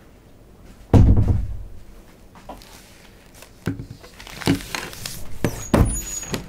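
Handling noise close to the microphone: a heavy, deep thump about a second in, then rustling and several sharp knocks in the last few seconds.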